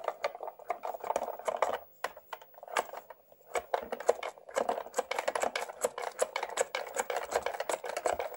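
Fingers scrubbing shampoo lather into a Barbie doll's hair in a small plastic salon basin: a rapid, uneven crackle of small wet clicks. It pauses for about a second and a half near two seconds in.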